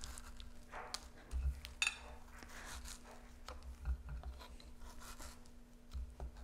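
A metal fork stabbing again and again into the firm rind of a raw spaghetti squash: a string of short, irregular pokes and scrapes, with a few dull knocks.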